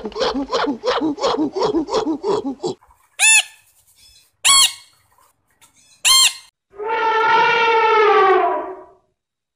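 A chimpanzee's rapid panting calls, about five a second, stop about three seconds in. A sun conure then gives three short, shrill screeches a little over a second apart, and an African elephant trumpets once, a steady call of about two seconds that fades out.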